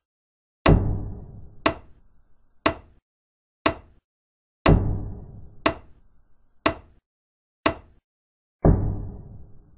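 Dramatic sound-design beat: sharp ticks once a second, with a heavier, deep booming hit on every fourth beat, three booms in all.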